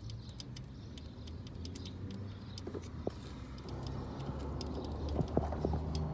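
Chrysler 3.6L Pentastar V6 running at idle, a steady low hum with fast, irregular light ticking over it. The hum grows louder about four seconds in, and a few sharper clicks come near the end.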